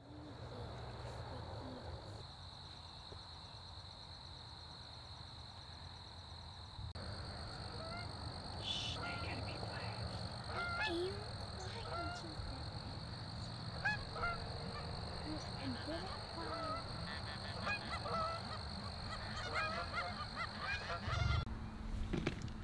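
Canada geese honking: many short honks, overlapping and frequent, starting about a third of the way in. Under them runs a faint steady high-pitched tone.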